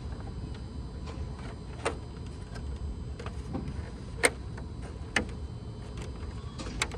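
Scattered sharp clicks and knocks of plastic grill parts being lined up and pressed together, about five over several seconds, the loudest a little after four seconds, over a steady low rumble.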